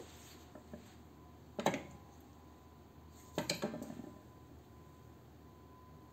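Metal clunks and clinks of old small electric motors being handled and shifted on a concrete floor: one sharp knock about a second and a half in, then a short rattle of clinks around three and a half seconds in as a motor is picked up.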